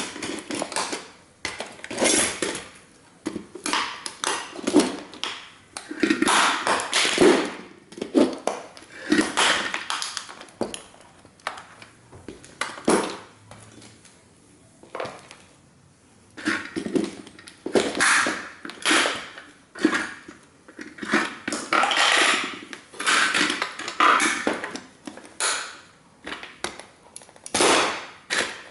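A 1:18-scale model toy car being stomped and crushed under sneakers: repeated irregular crunches, cracks and rattling of breaking parts, a few per second, with a short lull about halfway through.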